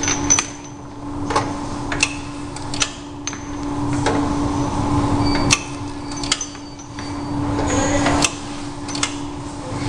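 Semi-automatic round-bottle labeling machine running: a steady hum, with clicks and knocks as bottles are loaded and the pressing arm is worked. Twice a labeling run swells for a second or two and ends sharply with a click.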